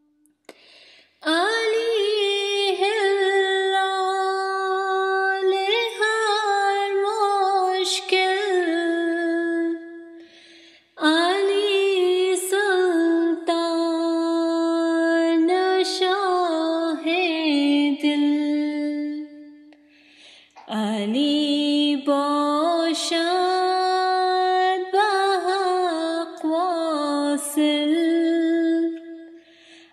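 A woman singing a Farsi devotional qasida solo, unaccompanied, in three long ornamented phrases with short breaths between them.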